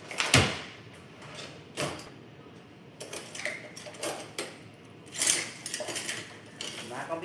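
Kitchen things being handled on a countertop. A sharp knock comes just after the start and another about two seconds in, then lighter clicks and rattles, with a louder clatter about five seconds in.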